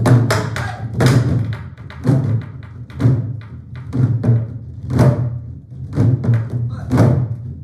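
Ensemble of buk (Korean barrel drums) played together in a steady pattern, with deep strikes on the drumheads and sharp clacks on the wooden shells, about one main beat a second with lighter strokes between.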